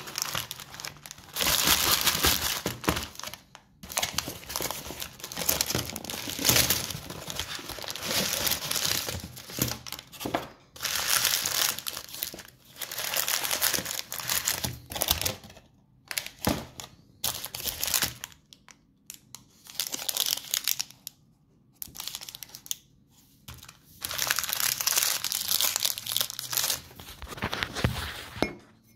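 Wrappers of individually wrapped Ferrero Raffaello candies crinkling as they are handled, in repeated spells of a second or several, with short pauses between.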